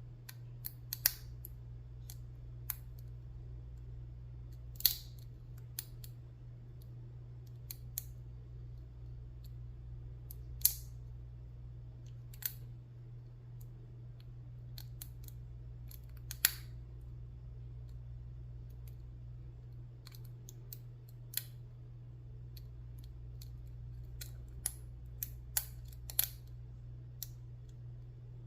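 Lock pick and tension wrench single-pin picking a Commando laminated padlock: scattered sharp metallic clicks at irregular intervals, a few louder than the rest, over a steady low hum.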